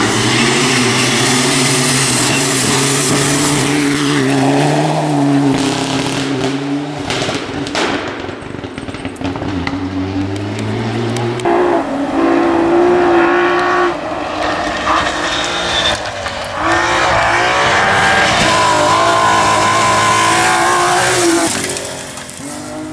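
Rally car engine driven hard along a stage, its pitch holding and then jumping or dropping several times as the gears change. The sound fades about a second before the end.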